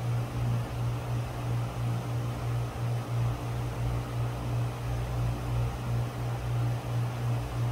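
ILG Model 183 18-inch self-cooled motor fan running at speed: a steady low motor hum that throbs a few times a second, over the even rush of air from the blades.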